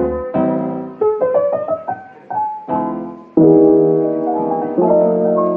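Background music: a piano instrumental playing struck chords and a melody, with a new chord every second or so.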